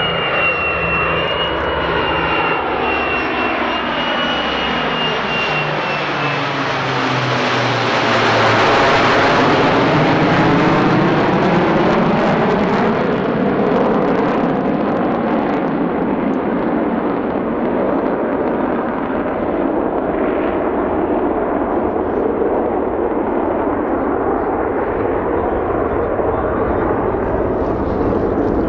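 A formation flypast of an Avro Lancaster with its four Merlin piston engines, flanked by a Tornado GR4 and an F-35B jet. Over the engine drone, a high whine slowly falls in pitch. The sound swells to its loudest about eight to twelve seconds in as the aircraft pass, then carries on as a steady rumble while they move away.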